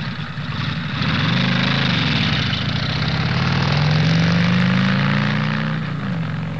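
A vehicle engine running steadily under a steady hiss, its pitch rising a little about a second in and easing back down near the end.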